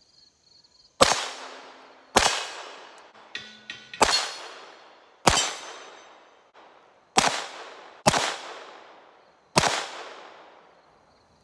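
Seven unsuppressed shots from an FN 502 .22 Long Rifle semi-automatic pistol firing Federal Auto Match, at an uneven pace roughly a second or two apart. Each shot is a sharp crack with a short echoing tail.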